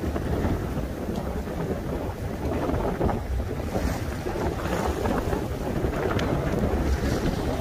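Strong wind buffeting the microphone over choppy sea on a small fishing boat: a steady, heavy low rumble of wind and waves.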